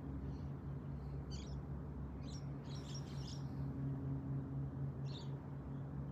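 Bosch Avantixx washing machine running with a steady low hum. A few short, high bird chirps sound over it, the busiest cluster about three seconds in.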